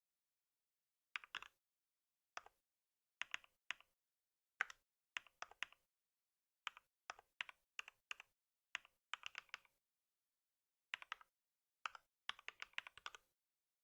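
Typing on a computer keyboard: bursts of quick keystroke clicks, a few keys at a time with short pauses between them, and a faster run of keys near the end.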